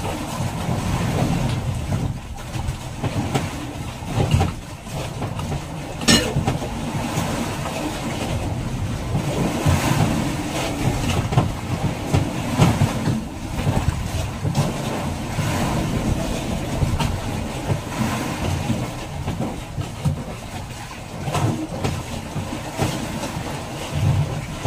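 Fishing boat at sea: a steady low rumble with frequent irregular knocks and clatter, and one sharp knock about six seconds in.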